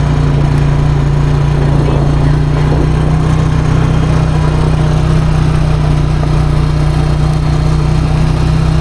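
ATV engine running at a steady, unchanging pitch.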